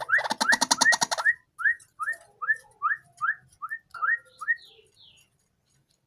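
White-breasted waterhen calling: a series of short rising notes repeated about two and a half times a second, with a harsh rapid rattle over the first second. The series fades out after about four and a half seconds.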